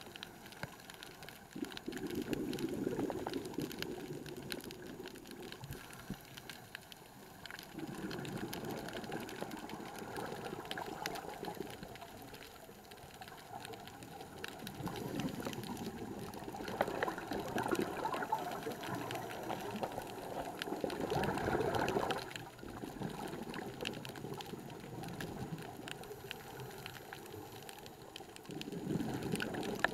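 Scuba diver breathing underwater through a regulator, heard through the camera housing: exhaled bubbles gurgle out in bursts a few seconds long, with quieter gaps between breaths.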